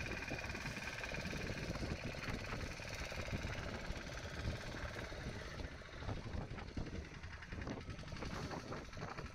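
Small fishing boat's engine running, faint and steady, under a haze of wind and water noise.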